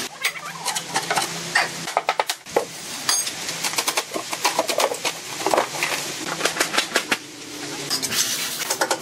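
A small metal hand tool scraping and clinking against freshly set concrete in quick, irregular strokes, as formwork and rough edges are cleaned off a cast concrete countertop. A longer stretch of scraping comes near the end.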